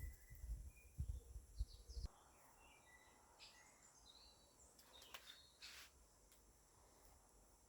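Wind buffeting the microphone as a low rumble for the first two seconds, cutting off abruptly. After that, faint scattered bird chirps and short high calls over quiet outdoor background.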